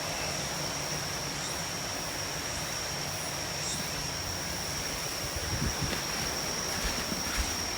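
Steady rushing noise of typhoon rain and wind, with a constant high-pitched whine running under it. A few soft low knocks come in the second half.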